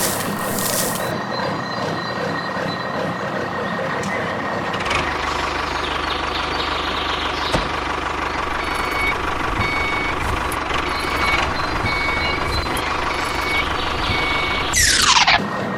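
Miniature construction vehicle sounding repeated short reversing beeps over a continuous motor rumble that grows stronger about five seconds in. A quick falling electronic sweep near the end is the loudest sound.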